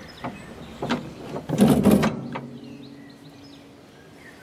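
Blade engagement lever and deck linkage of a Westwood lawn tractor worked by hand: a few metallic clicks, then a louder sliding clunk about two seconds in. The deck is pulled back, tensioning the drive belt to engage the blades.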